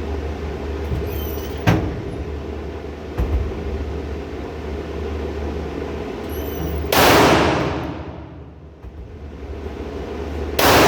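Two gunshots about four seconds apart, the first about seven seconds in and the second near the end, each with a long echoing decay. They sit over a steady low hum, with a small click earlier on.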